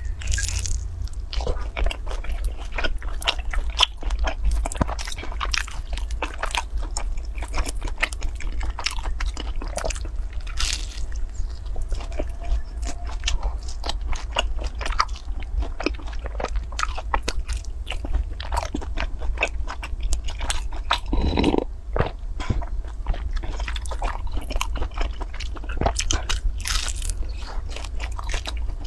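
Biting and chewing of a soft, sticky, stretchy cake coated in syrup and crumbs: a steady run of wet mouth clicks and smacks, with one louder mouth sound about three-quarters of the way through.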